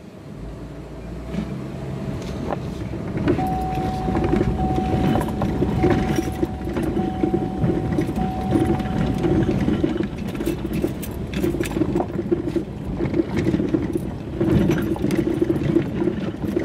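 Inside an SUV's cabin crawling over a rough, rocky dirt road: engine and tyres on rock, with many small rattles and clicks from the cabin, getting louder over the first few seconds as the SUV gets moving. A steady electronic beep sounds for several seconds in the middle.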